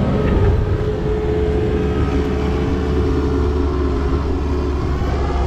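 A vehicle engine running steadily: a constant low sound with a steady hum above it.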